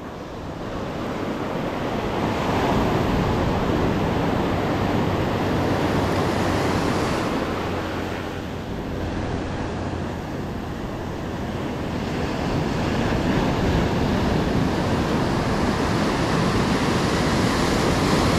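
Ocean surf breaking and washing up a sandy beach, with some wind buffeting the microphone. The wash swells, eases about halfway through, then builds again as the next wave comes in.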